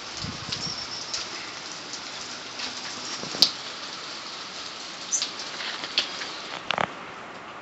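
Steady rain falling, with a few sharp ticks of drops scattered through it, the loudest about three and a half seconds in.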